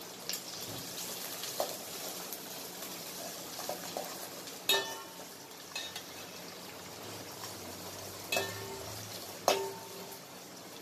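Sliced onions and curry leaves sizzling as they sauté in oil in a stainless steel pot, stirred with a perforated steel ladle that scrapes and clinks against the pot. Three sharp ringing clinks of the ladle on the pot stand out, one near the middle and two near the end.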